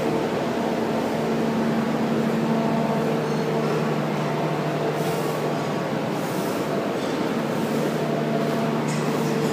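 Diesel locomotive engine idling: a steady drone holding a few level tones, with a few light metallic clicks about halfway and near the end.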